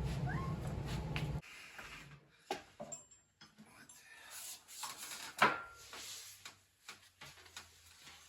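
Scattered metallic knocks and clunks as a Triumph Tiger Cub's 200 cc engine is worked out of its frame by hand. One sharp clank about five and a half seconds in carries a short ring.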